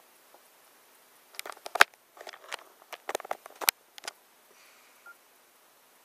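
Clusters of sharp clicks and taps, about a second and a half in and again from three to four seconds in, from pressing the keys of a Nokia N97 smartphone and handling it.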